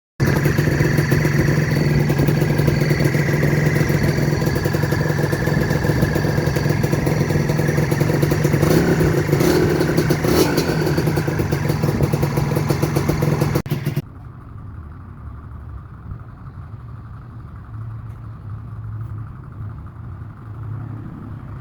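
Vehicle engine running with a steady high-pitched whistle over its hum, the 'cricket' or turbo-like noise being diagnosed. About 14 seconds in it cuts off abruptly to a much quieter engine running without the whistle.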